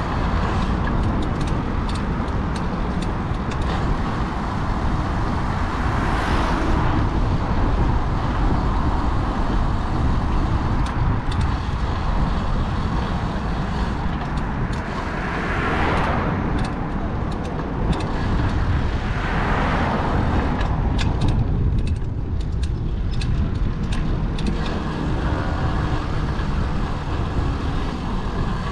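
Road traffic heard from a moving bicycle: a steady low rumble, with vehicles passing close about six, sixteen and nineteen seconds in.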